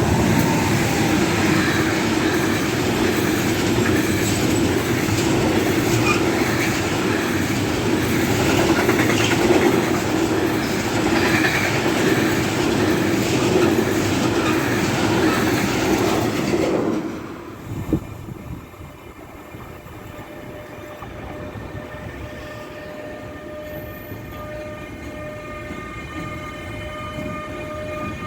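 A train passing close by at speed, its wheels clattering and rumbling over the rails for about seventeen seconds. The sound then drops off suddenly, and after a single click it gives way to a much quieter steady whine with several held tones.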